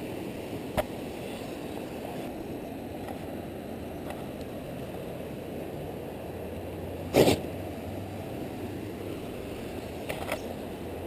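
Radio-controlled rock crawler working over rock: a sharp click about a second in, a loud knock about seven seconds in and a few smaller clicks near the end, over a steady low rushing noise.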